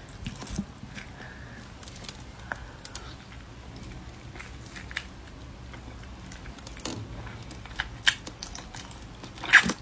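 Mouth sounds of eating a braised soft-shell turtle: scattered small clicks and smacks of biting and sucking at its head and neck bones, with a louder burst near the end.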